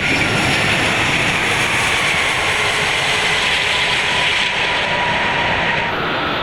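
Steady rush of airflow and jet engine noise on the Airbus A380 flight deck at touchdown and during the landing roll. About six seconds in, the hiss in the highest range drops away and a thin, high, steady tone comes in.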